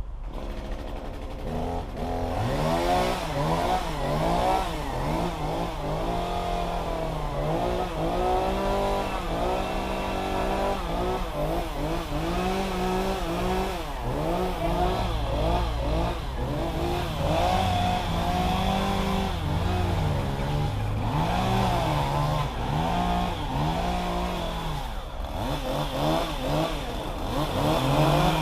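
An engine revving up and down over and over, its pitch rising and falling every second or so.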